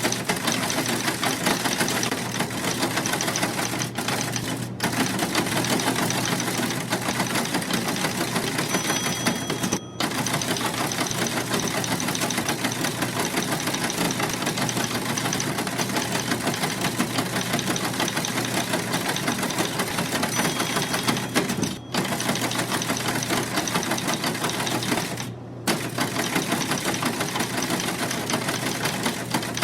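Teletype machine printing: a dense, continuous mechanical clatter of rapid strikes, which stops briefly three times, about 10, 22 and 25 seconds in.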